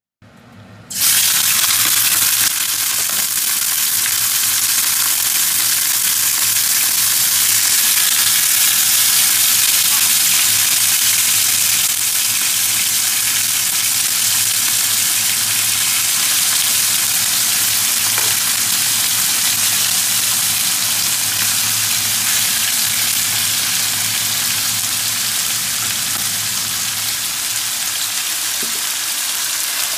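Raw chicken pieces frying in hot oil in a nonstick wok: a loud sizzle that starts suddenly about a second in as the meat hits the oil and carries on steadily, a little quieter in the later part.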